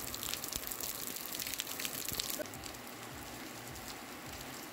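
Rain falling on paving stones and puddles: dense close drop hits for about two and a half seconds, then a steadier, quieter patter.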